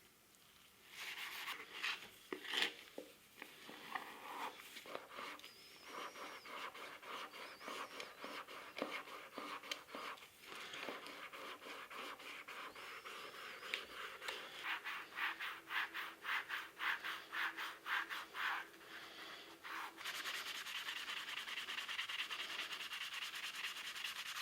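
Sponge and pot-cleaning paste scrubbing the stuck-on dirt and stains off a brass coffee grinder, in repeated back-and-forth strokes that grow denser and steadier near the end.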